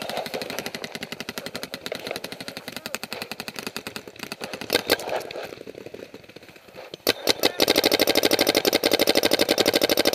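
Paintball markers firing rapid strings of shots. The firing thins out briefly around the middle, then comes back as a loud, fast, steady burst of about a dozen shots a second near the end.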